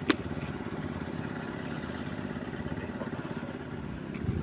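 A small engine running steadily, with a fast, even pulsing beat; a single sharp click sounds just after the start.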